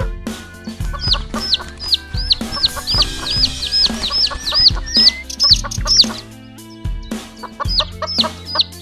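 Chicks peeping: a quick run of short, high, falling cheeps about three a second, pausing briefly past the middle and starting again near the end, over light background music.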